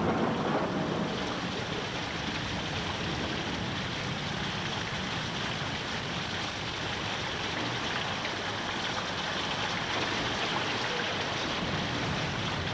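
Steady rushing water: an even, unbroken hiss with no separate drops or strokes.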